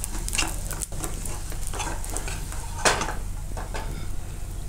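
Metal spatula scraping and sliding under a handvo on a nonstick kadai, with oil sizzling under the cake as it is lifted, with one louder scrape about three seconds in.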